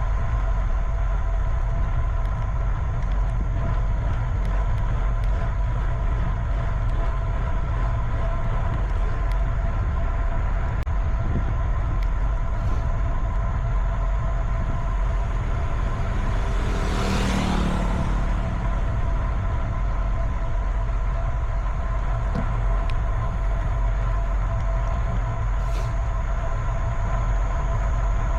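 Steady low rumble of wind and road noise on a moving bicycle's camera, with a vehicle passing about seventeen seconds in, swelling and fading over a few seconds.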